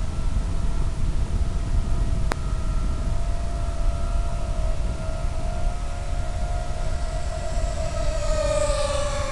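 Electric motor and propeller of an RD230 FPV plane at about three-quarter throttle: a steady whine over heavy wind rush. The whine rises a little and then dips in pitch near the end, and there is one sharp click about two seconds in.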